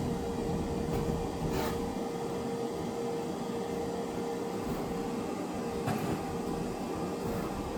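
Steady machine hum with a held mid-pitched tone and a few faint clicks.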